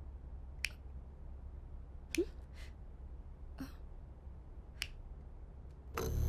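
Five sharp, separate clicks or snaps at uneven intervals over a low steady hum. Eerie music swells in near the end.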